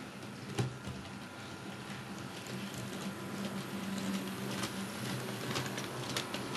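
Model railway train of open wagons running along the track: a low steady hum with irregular light clicking of the wheels on the rails, one sharper click about half a second in, the clicks coming more often near the end.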